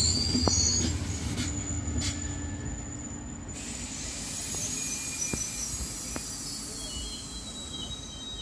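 SNCB/NMBS push-pull passenger train pulling out and moving away, its wheels squealing in thin, high, wavering tones over a low rumble. There are a few sharp clicks, and the sound fades as the train recedes.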